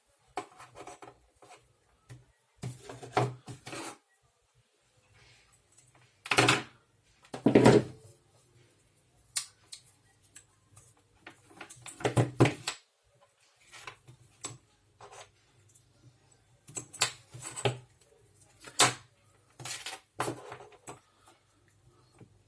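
Irregular clicks, knocks and clatter of small metal tools, wires and battery parts being handled and set down on a workbench, with a faint low hum underneath.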